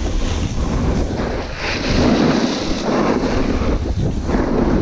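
Wind rushing over the camera microphone while riding a snowboard downhill, with the hiss and scrape of the board's edges on packed snow, louder from about two seconds in.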